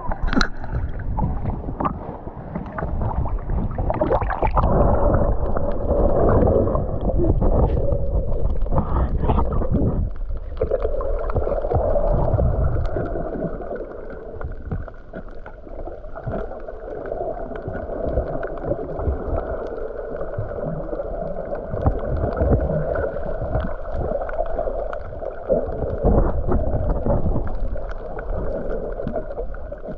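Muffled rushing and gurgling of water, surging louder through the first dozen seconds and then steadier.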